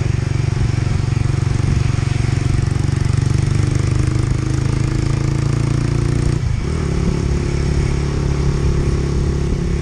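Direct Bikes 125 Storm engine running through a Black Widow aftermarket exhaust with its baffle fitted, holding a steady note while under way. About six and a half seconds in, the note briefly drops out, then carries on steadily.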